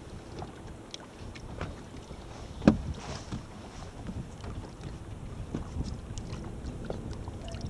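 Water slapping against a fishing boat's hull with wind buffeting the microphone, small scattered knocks throughout and one sharp, loud knock a little under three seconds in.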